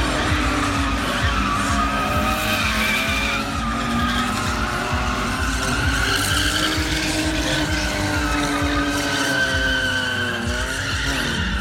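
Stunt vehicle's engine revving up and down with tyres squealing and skidding, as in drifting or spinning manoeuvres.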